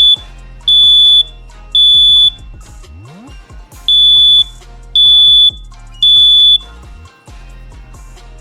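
Residential smoke detector sounding its alarm under test: loud, high-pitched beeps of about half a second each in groups of three, with a pause of about a second and a half between groups, the standard temporal-three alarm pattern.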